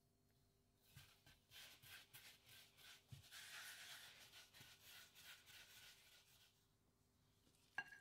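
Hands rubbing together, dusting off flour and dough: a dry, scratchy rubbing that lasts a few seconds. A single sharp click comes near the end.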